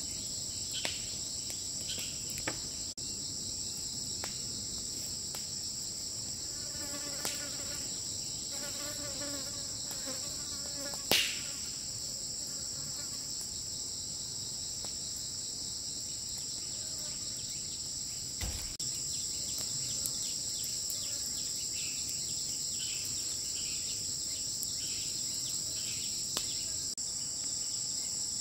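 Steady, high-pitched insect chorus, with a few light ticks and one sharper click about eleven seconds in.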